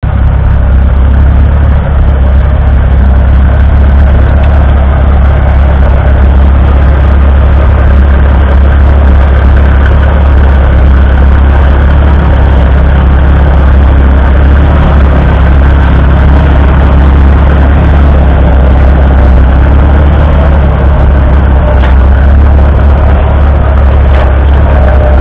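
McCormick-Deering W-4 tractor's 2.5-litre four-cylinder paraffin engine running steadily under load while pulling a plough.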